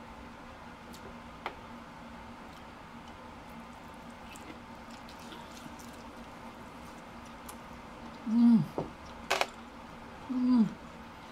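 Quiet, wet chewing of butter-soaked king crab meat with small mouth clicks. Later come two short, loud, low hums that fall in pitch, about eight and ten seconds in, with a sharp click between them.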